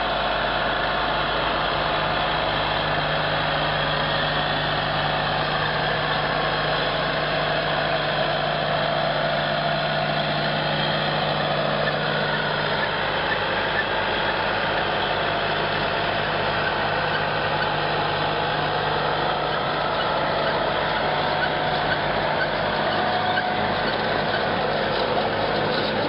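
Tractor engine and tractor-drawn carrot harvester running in the field: a steady engine hum under continuous machinery noise.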